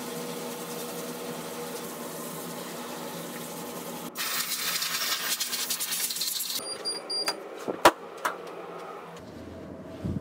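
Water spray hissing as it rinses activator residue off freshly hydro-dipped drill housing parts in a wash tank; about four seconds in the hiss gets louder and sharper for a couple of seconds. After that come a few sharp clicks and knocks.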